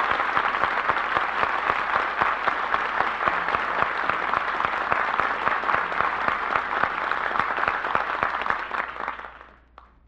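Studio audience applauding after a song, steady and loud, then dying away about nine seconds in.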